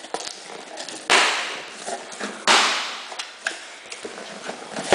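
Packing tape ripped off a cardboard box in two sharp tearing pulls, with cardboard flaps rustling and a knock near the end.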